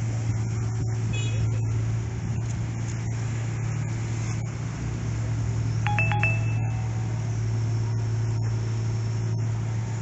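Amphibious mini excavator's diesel engine running steadily, a constant low hum. A couple of short electronic beeps come through about six seconds in.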